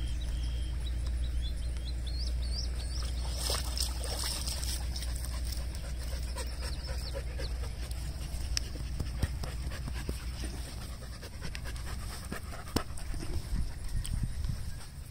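Husky panting.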